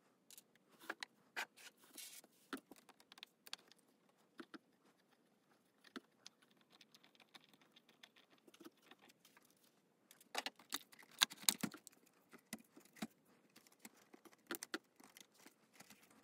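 Scattered small clicks and light metal rattles of screws and sheet-metal parts being handled, busiest from a little past the middle, as the iMac G4's metal optical-drive bay is worked loose and lifted out.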